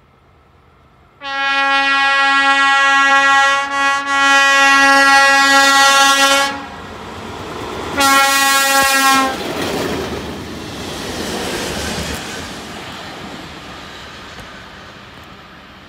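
Electric locomotive horn sounding one long blast of about five seconds, then a second short blast. The train then rolls past, its wheel and rail noise fading away.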